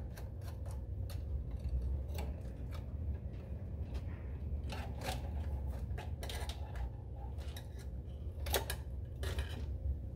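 Scattered small clicks and rattles of wires and terminal hardware being handled inside a sheet-metal control box, over a steady low hum.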